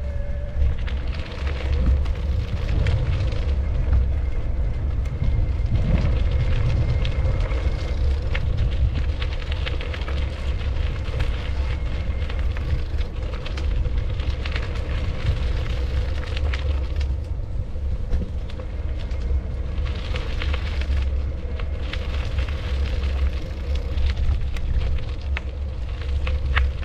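Wind buffeting the microphone, a steady rumble, with a steady hum running underneath and scattered small clicks.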